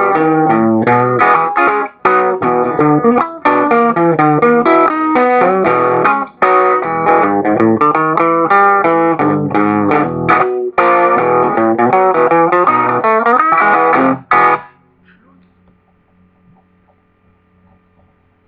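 Electric guitar playing a boogie tune, with a few very brief breaks, then stopping suddenly about fourteen seconds in, leaving only a faint hum.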